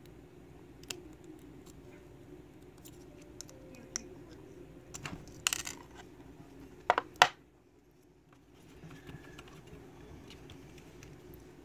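Small metal clicks and clatters as a steel lock is handled and taken apart by hand, then two sharp knocks about seven seconds in, the loudest, as the metal lock body is set down on the wooden bench tray.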